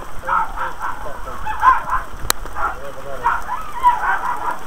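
Indistinct, muffled voices of people talking in short stretches, with one sharp click a little over two seconds in.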